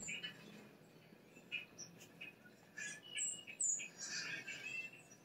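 Small songbirds chirping and calling at a feeder, heard through a television's speakers from a bird video. Scattered short chirps come first, then a couple of sharp high notes about three seconds in, and busier chattering near the end.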